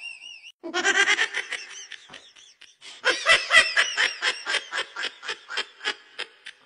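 Laughter: a brief warbling tone at the very start, a first burst of laughing, a short pause, then a long run of rapid laughing pulses, about four a second, that fades toward the end.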